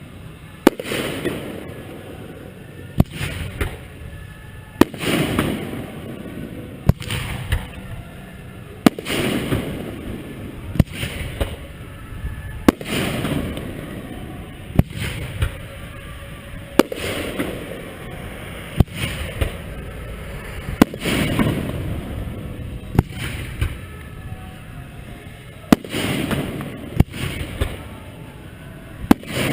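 Aerial fireworks shells bursting at close range: a sharp bang about every two seconds, each followed by a rolling rumble about a second long.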